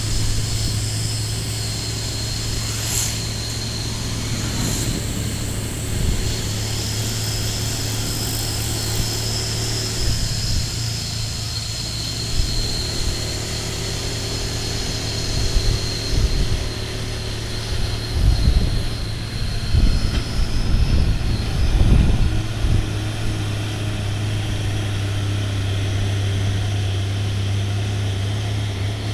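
Hino truck's diesel engine working hard as it pulls a container trailer uphill: a steady low drone with a high turbo whistle over it. The whistle fades about two-thirds of the way through, and a few uneven low rumbles come and go in the middle.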